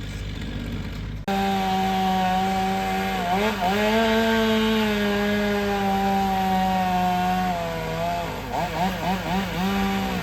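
Two-stroke chainsaw running at high revs, its pitch sagging under load as it cuts wood, then revving up and down rapidly near the end. For about the first second a lower engine idles, then it cuts off abruptly.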